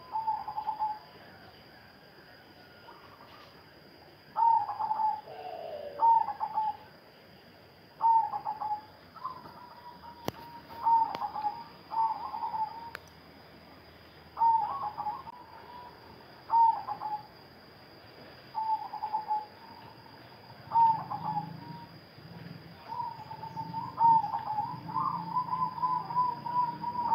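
Zebra dove (perkutut) cooing: about nine short coo phrases, roughly one every two seconds, then a longer rolling coo near the end.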